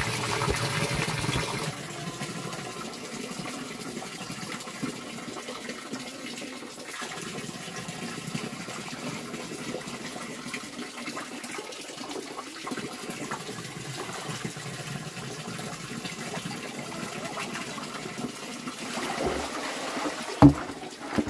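Steady rush of running water, a little louder for the first couple of seconds, with a single sharp knock near the end.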